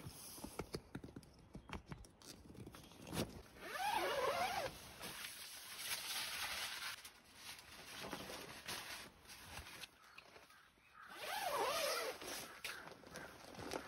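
A zipper pulled twice, each pull about a second long, several seconds apart.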